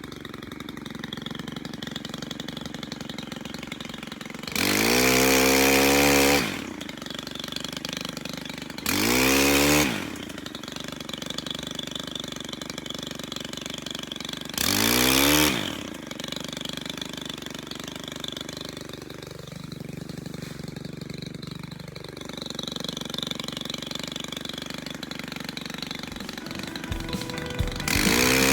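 Small engine of a pole pruner (a chainsaw head on an extended pole) ticking over, then revved up three times for a second or two each, the pitch climbing as it winds up, as it cuts overhanging magnolia branches.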